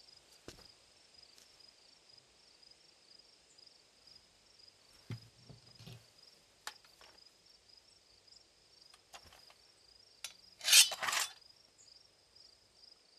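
Crickets chirping steadily in the background, with a few soft clicks and knocks. Near the end a sword is drawn from its scabbard with one short, loud metallic scrape.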